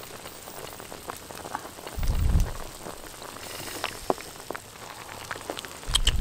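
Snake soup boiling hard in a wide pan, with a steady crackle of bubbles popping while a wooden spoon stirs it. Two short low rumbles, about two seconds in and near the end, are the loudest sounds.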